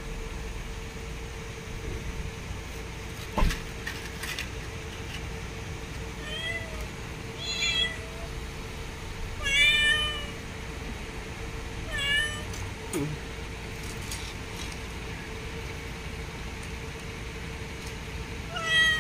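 A domestic cat meowing: four short, high meows a second or two apart, the loudest about ten seconds in. One sharp knock comes about three and a half seconds in, over a faint steady hum.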